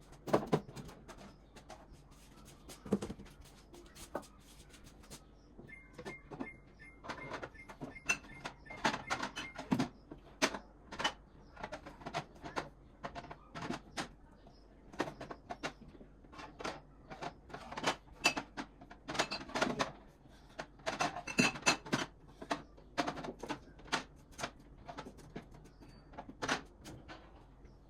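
Groceries being packed into a refrigerator: irregular clinks, knocks and rattles of containers set down on the fridge shelves and moved around. A thin high beep sounds for a few seconds about a quarter of the way in.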